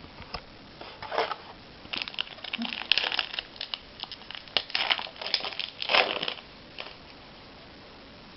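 Trading card pack wrapper crinkling and crumpling in the hands in irregular bursts, busiest in the middle few seconds.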